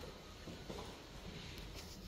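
Quiet indoor room tone: a faint steady low rumble with light background hiss and no distinct sounds.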